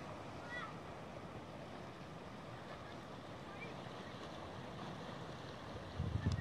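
Outdoor seashore ambience: a steady wash of calm sea against a rocky shore, with a few short bird chirps. Near the end, wind buffets the microphone with a low rumble.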